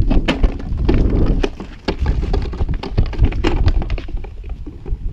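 Irregular knocks and crackles of a plastic bottle being knocked about on dirt, over a heavy low rumble of movement and wind on the microphone.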